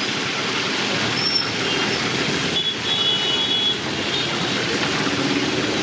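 Whole fish deep-frying in a large pan of hot oil, giving a steady crackling sizzle.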